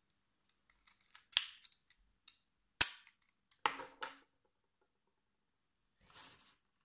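Several sharp plastic clicks, the loudest about three seconds in, from a spring-loaded finger-prick lancing device and blood glucose meter being handled for a fingertip blood test; a short rustle near the end.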